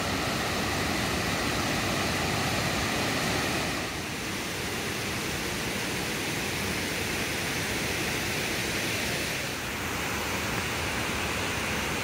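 Waterfall cascades pouring, a steady even rush of falling water, its level and texture shifting slightly about four seconds in and again near ten seconds.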